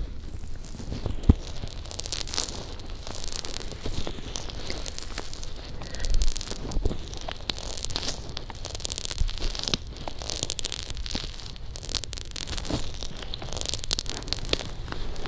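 Fingers massaging lotion over a silicone ear on a homemade binaural microphone: close-up rubbing in repeated hissy strokes about once a second, with small sticky clicks and a few low bumps where the hand presses the mic.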